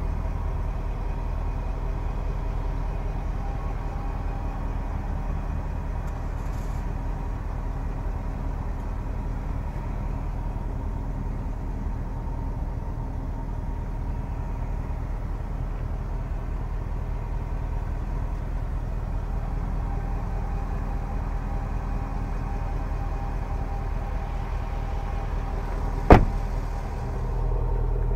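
Range Rover Sport's supercharged V8 idling with a steady hum. A single sharp knock sounds near the end.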